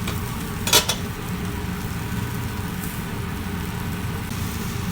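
A metal utensil strikes the cooking pan once, sharply, about a second in, over a steady low rumble as the chicken cooks in the pan.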